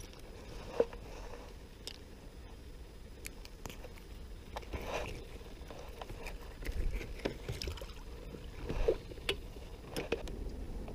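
Scattered small knocks, scrapes and a few splashes as a crappie is handled and threaded onto a rope stringer, with gear bumping on the kayak and water sloshing against it.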